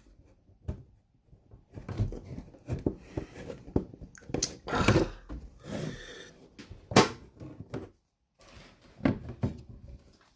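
Handling noises: scattered knocks, clicks and rustling close to the microphone, with one sharper knock about seven seconds in.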